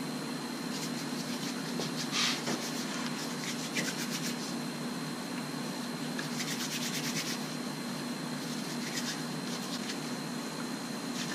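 Palms rubbing and rolling a lump of two-part epoxy putty (JB Weld WaterWeld), a soft, rapid swishing in spells, mixing the resin and hardener to one even color. A steady low hum runs underneath.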